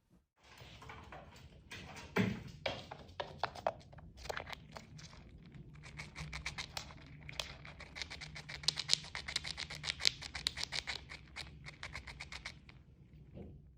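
Rapid scratching and tapping, a few strokes a second, densest in the middle.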